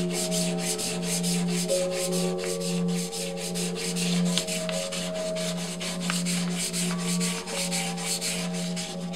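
Hand sanding with 500-grit paper on the metal bell housing of a 1982 Royal Model 880: quick, even back-and-forth strokes, about three a second, a dry sanding stage after 100 and 220 grit. A steady hum and ringing tones sound underneath.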